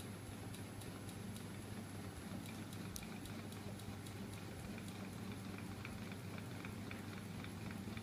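Homemade magnetic flywheel machine running: a small 12 V DC electric motor turning a 10 kg flywheel and crank linkage, with a steady low hum and rapid light ticking and clattering from the moving parts.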